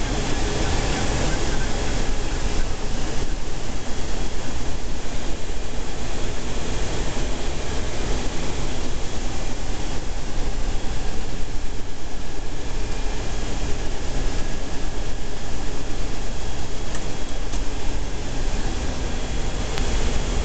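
Steady flight-deck noise inside a C-17 Globemaster III in low-level flight: a continuous, even rush of engine and airflow noise with faint steady tones.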